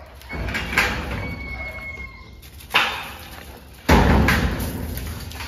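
Four bangs and rattles of metal kennel doors and corrugated sheet-metal panels as greyhounds jump about; the loudest comes just before four seconds in and rings on briefly.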